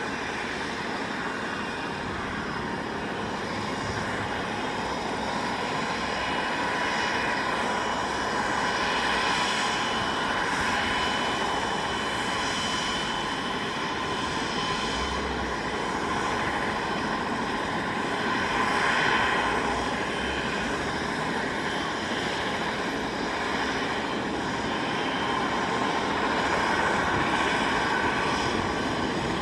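Eurocopter BK117 helicopter running on the ground with its main rotor turning, before takeoff. Its twin turbine engines give a steady whine with a high tone over the rushing rotor noise, swelling slightly in loudness a few times.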